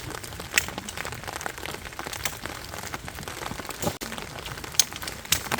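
Rain falling on a tent: a steady hiss with many sharp, irregular drop taps on the fabric.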